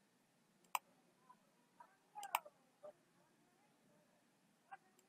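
A few faint computer-mouse clicks over near-silent room tone: one about a second in, a small cluster a little past halfway, and one near the end.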